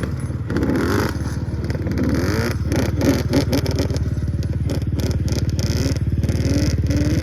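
Yamaha Banshee's 350cc two-stroke twin engine running steadily, its pitch wavering a little as the throttle shifts.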